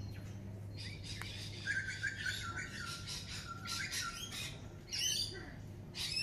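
Wild birds calling outdoors: runs of short, repeated chirps and calls, with a few quick falling notes about five seconds in.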